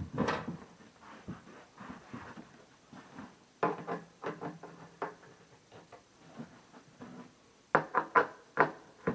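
Sharp knocks and clatter of wooden cabinet parts being handled and fitted together during assembly. A louder knock comes at the start, then clusters of quick knocks about four and eight seconds in.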